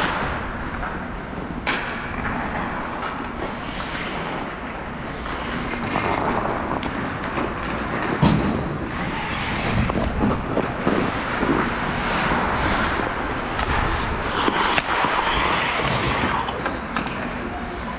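Ice hockey play: skate blades scraping and carving across the ice, with scattered sharp clacks of sticks and puck.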